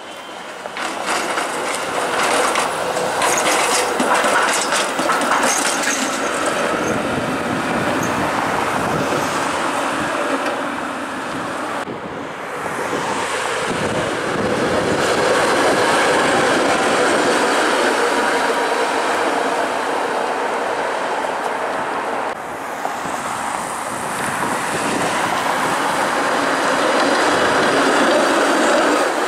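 TTC CLRV electric streetcars running on street track among passing cars, with a run of clicks in the first several seconds. The sound is loudest near the end as a streetcar passes close.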